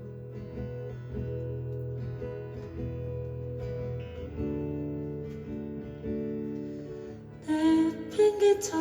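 Acoustic guitar strumming sustained chords in an instrumental passage of a live song, with a chord change about halfway through. A singing voice comes back in near the end.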